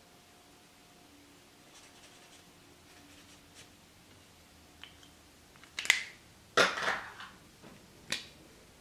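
A highlighter and a paper chart being handled: faint felt-tip strokes on paper, then about six seconds in a sharp click, a short scraping rustle and another click near the end.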